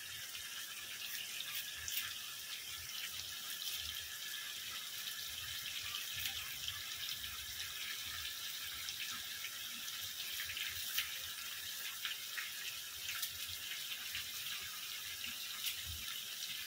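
Chicken curry sizzling in an aluminium pot: a steady crackling hiss with many small ticks as a steel spoon stirs through it.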